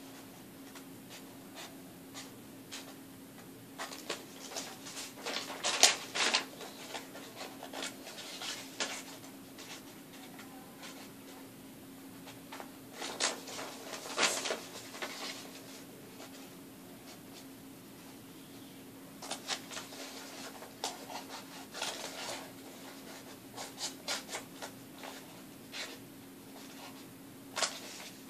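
Scissors cutting paper: irregular spells of snipping and paper rustling with short pauses between, over a faint steady hum.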